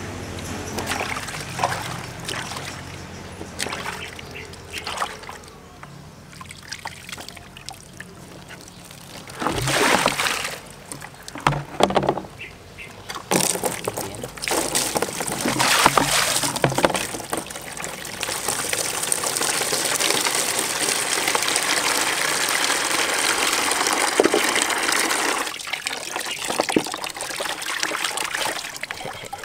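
Water splashing and sloshing in a plastic basin as hands wash a baby monkey. Midway, water from a hose pours steadily into the basin for several seconds, and then splashing resumes as the monkey is rinsed in the fresh water.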